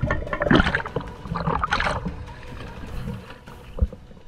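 Sea water sloshing and gurgling in irregular bursts, fading away near the end.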